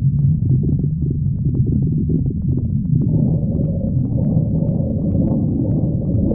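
A person's stomach growling: a continuous low rumble broken by small gurgling pops. About halfway through it turns into a higher, more tone-like growl.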